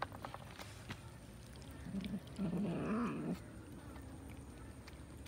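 Cats feeding from a shared tray: a few small clicks in the first second, then about two seconds in one cat gives a low, wavering growl that lasts about a second and a half.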